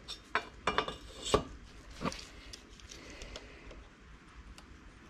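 Steel digital calipers clinking and knocking against a piston as they are set across it, several sharp clicks in the first second and a half, then a softer knock and a few light ticks.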